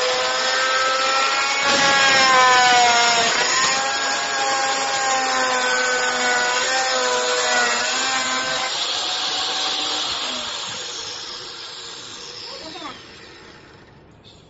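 Electric circular saw with a carbide-tipped (TCT) wood blade cutting through a wooden board, its motor whining and the pitch sagging under load. After about ten seconds the sound fades, and near the end a falling whine as the blade spins down.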